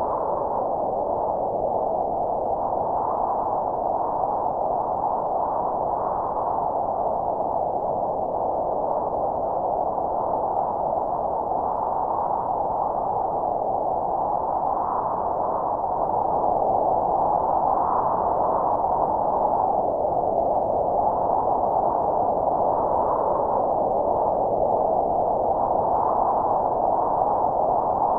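Steady rushing noise, filtered into a narrow mid-pitched band, as a sound-design drone. It grows a little louder just past halfway.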